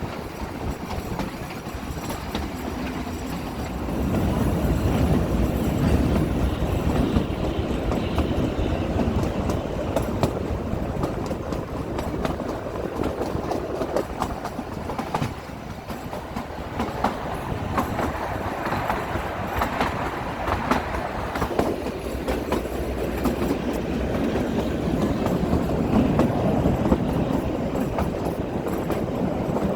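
Kalka–Shimla narrow-gauge toy train running along the track: a steady rumble with the clickety-clack of the wheels over the rail joints, swelling louder a few seconds in and again near the end.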